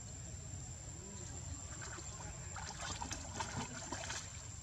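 Water splashing and sloshing as macaques swim in a pond, the splashes growing busier about halfway in.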